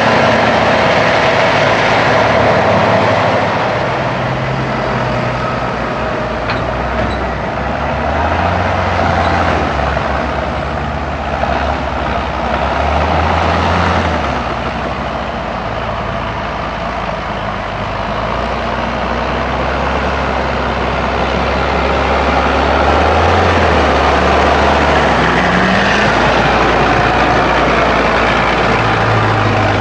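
Heavy diesel farm machinery running continuously during maize harvesting, with the engine notes shifting in pitch as the load changes; quieter through the middle and louder again in the last several seconds.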